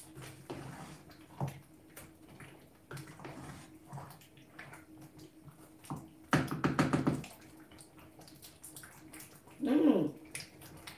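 Wooden spoon stirring thick egusi soup in a metal pot: light knocks and scrapes against the pot, with a louder rasping scrape a little after the middle. A faint steady hum underneath and a brief murmur near the end.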